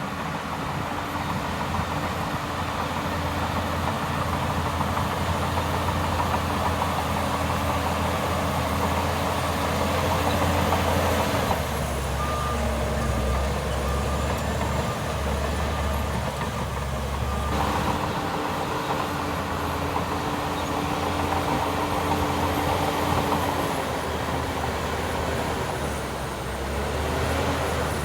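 Heavy diesel earthmoving machinery running steadily under load. In the middle, for about six seconds, a reversing alarm beeps at an even pace while the engine note drops, then the engine picks back up.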